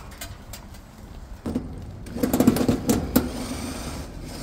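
Right-angle cordless drill running in a short burst, driving a sheet-metal screw into a panel, with sharp clicks near the end of the run.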